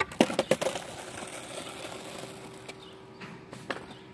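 Skateboard clacking hard on asphalt several times in quick succession at a flip-trick attempt, then its wheels rolling and fading away, with a couple of lighter knocks later. A faint steady tone runs underneath from about a second in.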